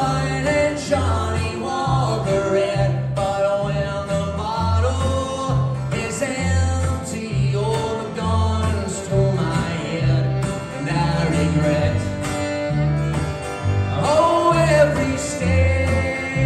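Live acoustic string band playing: a strummed acoustic guitar and a bowed fiddle over an upright bass plucking a steady line of low notes.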